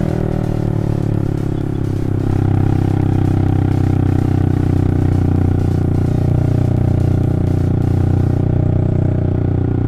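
Yamaha Vixion's single-cylinder four-stroke engine pulling steadily under load up a steep climb, getting a little louder about two seconds in.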